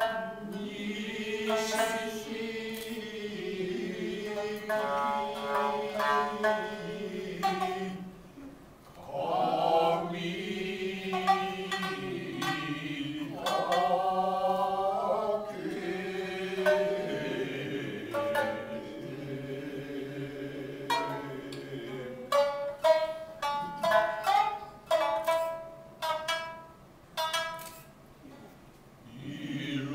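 Utazawa song: voices singing together in long, wavering held notes, accompanied by shamisen plucked in sparse notes. In the last third the shamisen plucks come to the fore in a quicker string of notes.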